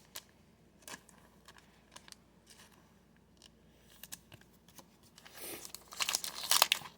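Trading cards being handled, with scattered light clicks and taps. About five seconds in comes a louder stretch of crinkling and tearing as a foil card pack wrapper is torn open.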